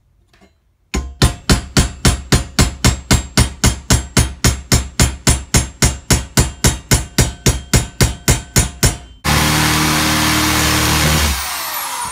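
Hammer striking the steel seat bracket in a fast, even series of blows, about four a second for roughly eight seconds. Near the end a power drill runs for about two seconds and winds down.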